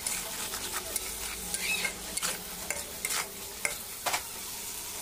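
Tiger prawns sizzling as they fry in oil in a kadai, with a spatula stirring them and scraping and knocking against the pan about seven times.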